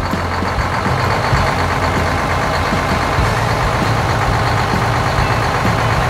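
Heavy engine sound effect of a combine harvester driving onto a trailer: a steady, dense engine noise with a low hum underneath.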